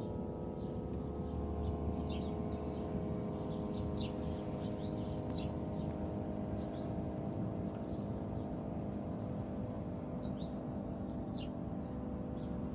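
Birds chirping in short, scattered calls over a steady drone of several held, ringing tones and a low rumble.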